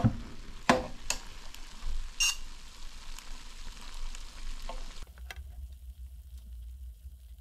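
Fat and juices sizzling and crackling around a freshly roasted whole chicken in a pulled-out air fryer basket, with a few sharp clicks and knocks in the first seconds. Most of the sizzle cuts off about five seconds in, leaving a low hum.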